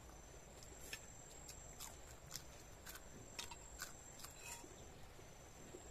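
Faint eating sounds: scattered soft clicks and smacks of chewing, about a dozen over a few seconds, over a steady high-pitched whine that drops out briefly near the end.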